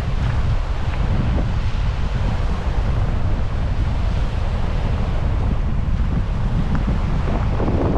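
Strong wind buffeting the microphone: a steady, loud, rumbling noise.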